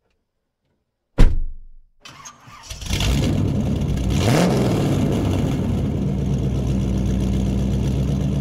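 A loud thump about a second in, then a car engine cranks and starts, revs once with a rising pitch and settles into a steady idle.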